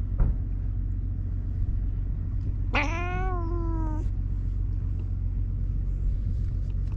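A cat's single drawn-out meow, a little over a second long, rising briefly and then slowly falling in pitch, over a steady low rumble.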